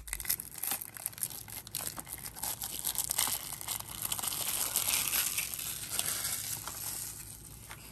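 Plastic shrink wrap being peeled and torn off a Blu-ray case: irregular crinkling and crackling that thins out near the end.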